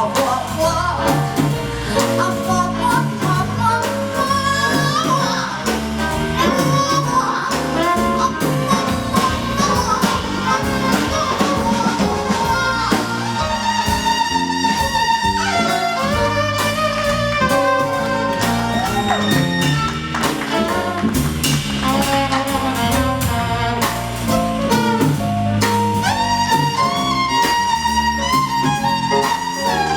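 Jazz band playing live through an instrumental passage, a lead melody line over a steady rhythm section.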